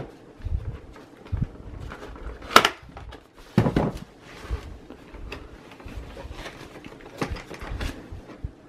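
Small cardboard CPU box being opened by hand: flaps lifted and a paper insert slid out, giving scattered rustles, scrapes and light taps, the sharpest about two and a half seconds in.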